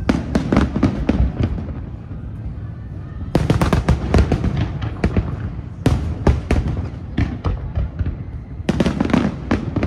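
Aerial fireworks going off: volleys of sharp cracks and bangs in clusters a few seconds apart, over a steady low rumble of booms.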